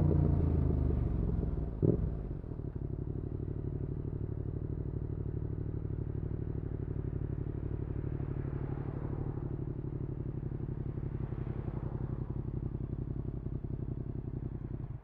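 Yamaha XSR700's parallel-twin engine through an aftermarket IXRACE MKII exhaust, revs falling as the bike slows, then idling steadily with an even pulse. There is a sharp click about two seconds in. The engine note stops abruptly at the end.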